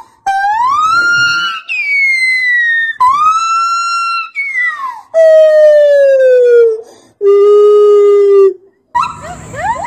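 A white-handed (lar) gibbon calling: a run of loud, pure hooting notes, each about a second or two long with short breaks, some sweeping upward and others gliding down, with a steady lower held note near the end. In the last second, after a cut, quick short rising whoops sound over a steady hiss.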